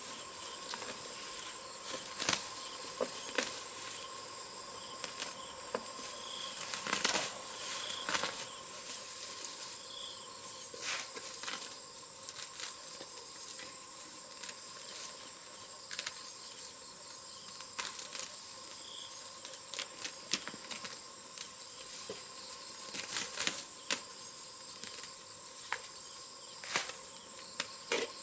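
Insects trilling steadily in a high, even drone, with a dozen or so sharp clicks and knocks scattered through it.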